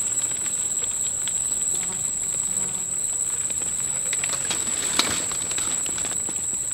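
Steady, high-pitched drone of insects that does not change in pitch or loudness. A few faint ticks and one brief click about five seconds in come from handling.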